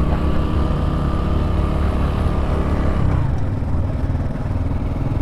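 Honda Pop 110i's single-cylinder four-stroke engine running while riding, holding a steady note, then its pitch drops about three seconds in as the revs fall.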